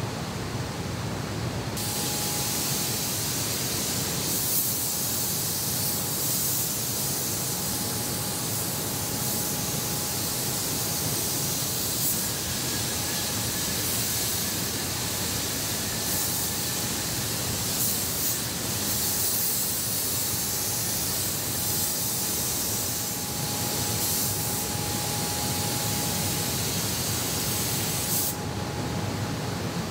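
Hose-fed spray gun hissing steadily over a low factory hum. The spraying starts about two seconds in and cuts off abruptly near the end.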